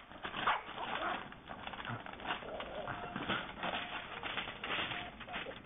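A Yorkshire terrier scrabbling on a wooden desktop, its claws clicking and scratching on the wood in quick irregular strokes as it paws and tears at crumpled paper, which rustles.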